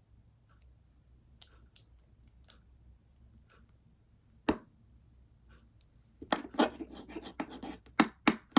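Pen and handling noise close to the microphone: faint scattered ticks, one sharp click about four and a half seconds in, then a couple of seconds of crackling rustle with a few sharp clicks near the end.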